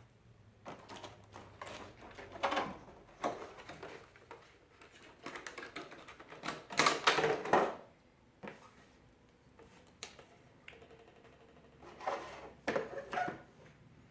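Box packaging being opened and handled to take out a small toy drone: irregular rustling and clicking clatter in bursts, loudest about seven seconds in.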